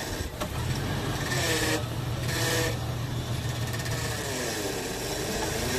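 Jeep Wrangler's engine running at low revs as it crawls over rocks, with a few short rises and dips in its note as the throttle is worked.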